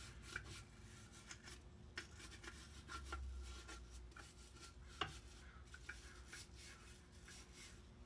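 Faint brush scrubbing of an engine piston and connecting rod in a bucket of degreaser solution, with a few light clinks and taps of metal against the bucket, the sharpest about five seconds in.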